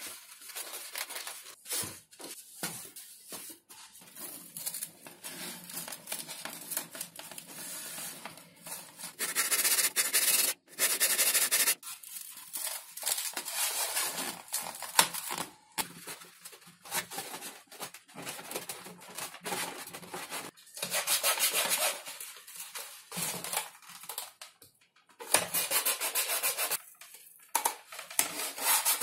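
Hands rubbing, sliding and pressing sheets of XPS foam, with four loud rasping stretches of one to two seconds each.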